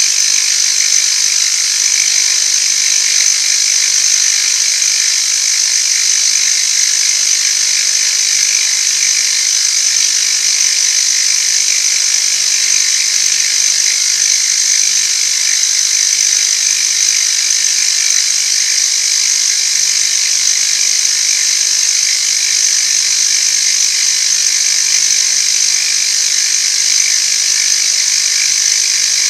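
Metalworking machine tool running steadily through a long cut in metal, an even high-pitched noise with no pauses.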